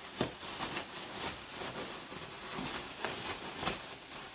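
Plastic grocery bag rustling and crinkling as it is shaken and turned to mix crushed chips, beef jerky, sausage and pickles inside, with uneven crackles every second or so.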